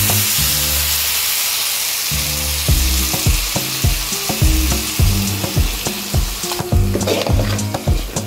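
Onions, dried red chillies and mustard seeds sizzling in hot oil in a pan as strained lemon juice is poured in. The hiss eases off about six and a half seconds in.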